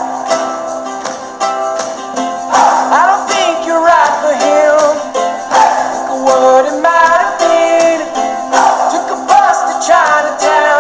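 Background music: a song with plucked guitar or ukulele, steady percussion and a singing voice.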